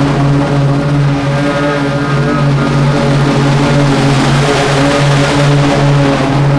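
Stand-on zero-turn lawn mower's engine running steadily with its blades cutting tall, overgrown grass; the engine note wavers slightly at a regular pace under the load.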